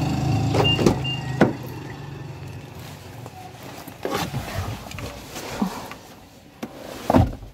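Car door being opened and someone climbing into the seat: clicks and knocks, then a heavy thump near the end as the door is shut. A steady engine hum fades out in the first second or two.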